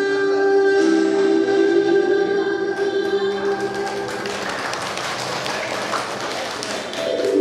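Music with steady held notes. About halfway through the notes drop away under a wash of noise for a few seconds, and the music comes back just before the end.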